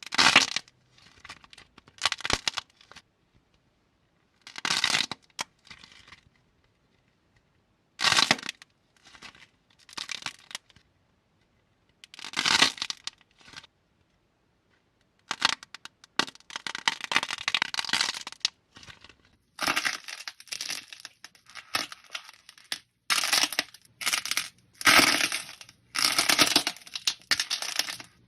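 Slime being squeezed and pressed by hand: short squishing, crackling bursts with silent pauses between them, coming thick and fast in the second half.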